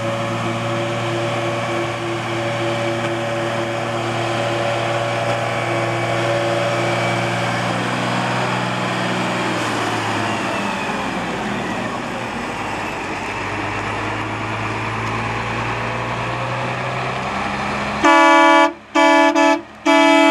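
John Deere 250D Series II articulated water truck's diesel engine running steadily under the hiss of its water cannon spraying, the spray dying away about halfway through as the truck drives past. Near the end its horn sounds in a few loud short toots, the loudest thing heard.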